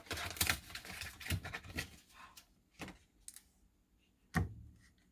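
Plastic snack pudding cups being handled and opened: about two seconds of rustling and crinkling with clicks, then scattered light taps and clicks, and a sharper knock near the end.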